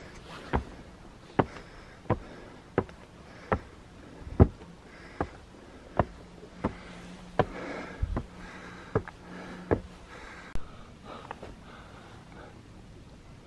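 A regular series of sharp knocks, about one every three-quarters of a second, stopping about ten and a half seconds in.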